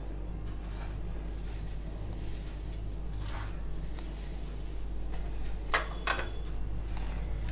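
Poppy seeds sprinkled by hand onto a stainless steel plate: a faint soft hiss of falling seed, with two sharp light clinks against the metal close together about six seconds in. A steady low hum runs beneath.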